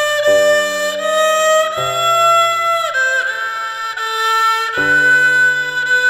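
Background music: a slow melody of long held notes over a bass line that changes every second or two.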